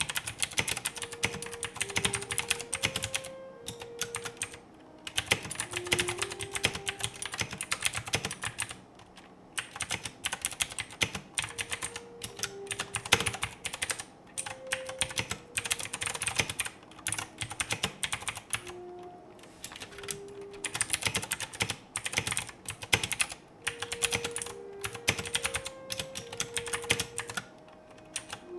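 Typing on an AKKO 3084 mechanical keyboard with clicky AKKO blue switches: fast runs of sharp key clicks broken by short pauses.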